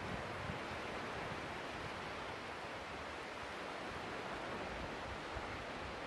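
Steady wash of sea surf on a sandy beach, with wind buffeting the microphone in low, uneven rumbles.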